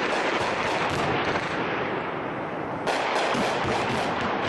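Sustained gunfire in a firefight: many rapid, overlapping shots, machine-gun and rifle fire, with a denser burst starting about three seconds in.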